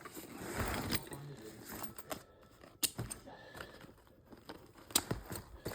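Canvas tool bag being handled and turned over: the fabric rustles and rubs, with a few sharp clicks or taps along the way.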